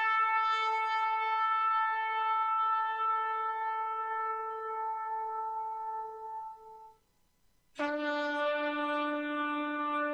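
Long held blasts on a horn-like wind instrument: one steady note dies away about seven seconds in, and after a brief silence a second, lower note starts suddenly and is held.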